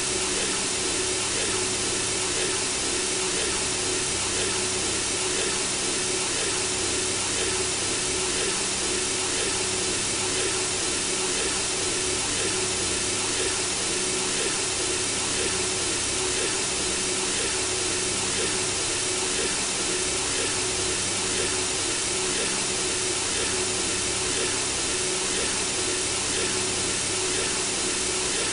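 Steady synthesizer white noise: an even hiss with a faint low tone underneath, made to mimic the whoosh of blood circulating in the womb.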